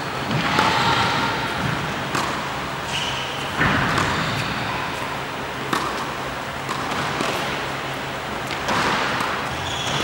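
Tennis ball struck by racket strings and bouncing on an indoor hard court, in sharp separate hits a second or two apart, echoing in a large hall.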